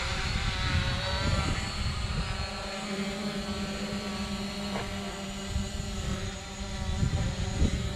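Hubsan Zino quadcopter's propellers whining steadily as it flies, with wind rumbling on the microphone.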